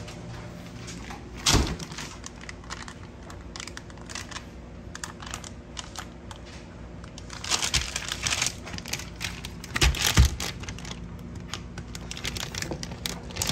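Kitchen clatter: scattered clicks and knocks of cookware and utensils being handled, with a run of quick clicks about eight seconds in and the loudest knocks about a second and a half and ten seconds in.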